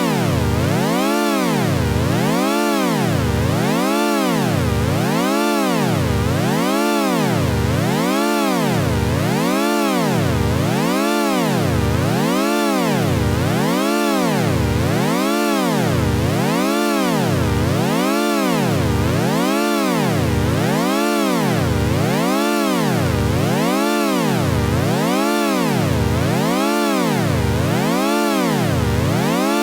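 Synthesized 'weird talk' sound effect: one electronic tone with many overtones, sliding up and down in pitch over and over, about once every second and a half, at an even loudness.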